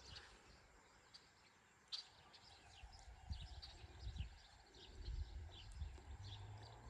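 Faint outdoor ambience of small birds chirping, with short high chirps repeating all through, and soft low thuds in the second half.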